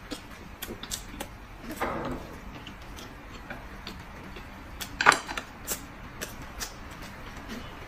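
Chopsticks clicking and tapping against porcelain plates and bowls at irregular intervals, with the loudest clatter a little after five seconds in.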